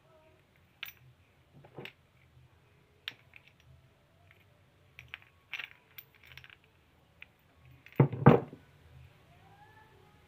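Small steel parts of a dismantled tie rod end clinking and clicking against each other as they are handled, with a louder double knock about eight seconds in.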